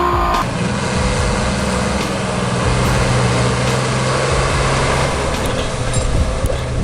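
A motor vehicle's engine running with a steady low hum under heavy mechanical noise, starting with an abrupt cut about half a second in.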